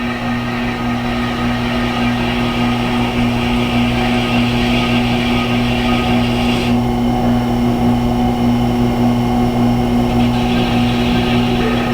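Tormek T-8 sharpener's motor running with a steady hum while a Leatherman blade is honed on its leather honing wheel to strip off the burr. A hiss from the blade on the wheel rides over the hum and drops away partly a little past halfway.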